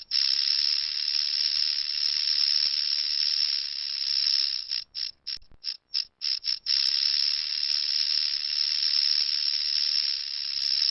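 Rattlesnake shaking its tail rattle: a dry, high buzz that holds for about five seconds, breaks into a handful of short rattles, then runs long again and ends in a few short bursts.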